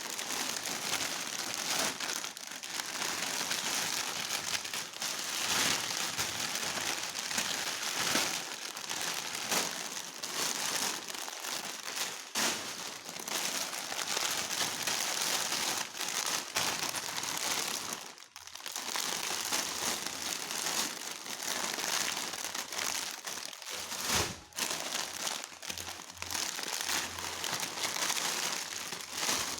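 Plastic snack packets crinkling and rustling as they are handled, a steady crackle of many small clicks that drops out briefly twice.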